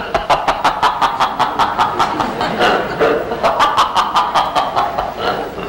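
Hearty laughter in a long run of quick, even ha-ha pulses, about six a second, loosening near the end.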